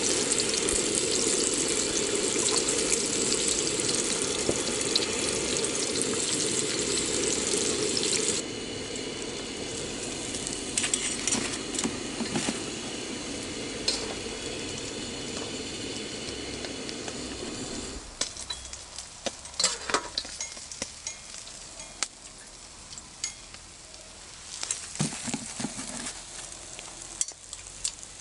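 Striped red mullet frying in hot oil in a wok: a dense, steady sizzle that drops in level about eight seconds in and dies away about two-thirds of the way through. After that there are only scattered light ticks and taps.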